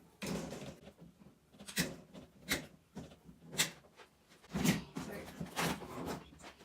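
A series of about six sharp snaps and knocks a second or so apart: zip ties being snipped while the wire grid panels of a C&C guinea pig cage are taken apart.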